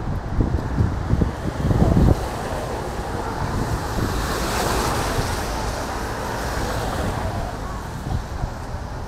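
Wind buffeting the microphone for the first two seconds, then a vehicle passing on a wet street, its tyre hiss swelling to a peak about halfway through and slowly fading.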